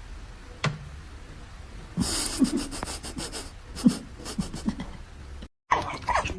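A pet animal breathing hard, with several short low-pitched sounds about halfway through; near the end it cuts off abruptly and a person's voice begins.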